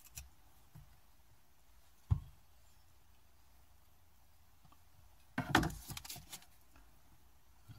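Quiet hand-handling noises from working a stick of steel epoxy putty: a single dull knock about two seconds in, then about a second of crackling and clicking past the halfway point.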